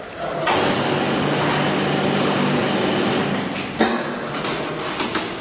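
Solar water heater outer-tank production machine running with a steady hum and noise for a little over three seconds, ending with a sharp metallic clank, then a few lighter clicks.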